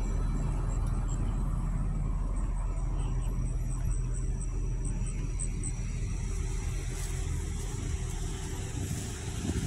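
Steady low rumble of a motor vehicle engine running. A faint high ticking, about three a second, comes for a few seconds in the middle, and there is a brief knock near the end.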